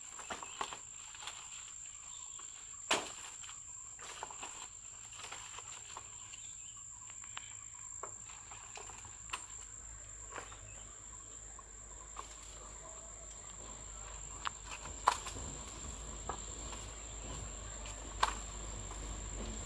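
A steady high-pitched insect drone, with the rustle of leaves and scattered sharp snaps of jungle undergrowth being cut and broken with a machete and underfoot. Three snaps stand out, one early, one in the middle and the loudest near the end.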